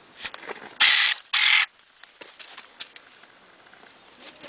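Electric pruning shears making two quick cuts half a second apart, each a short loud whir of the motor driving the blade through a dragon fruit stem.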